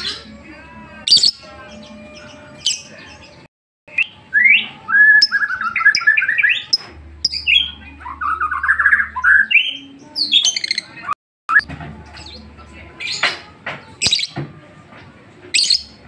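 Fischer's lovebird chattering: sharp chirps and squawks broken by fast runs of choppy notes, the 'ngetik' song, busiest from about four to ten seconds in. The sound cuts out completely for a moment twice.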